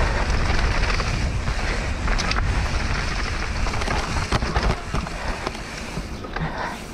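Propain Tyee 29-inch mountain bike running downhill on a dirt trail: wind buffeting the microphone and tyres rolling over the ground, with scattered knocks and rattles from the bike. It gets quieter near the end.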